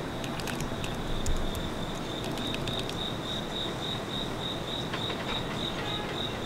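Crickets chirping in a steady, pulsing high trill, over the faint rumble of an approaching R211A subway train, with a few light clicks.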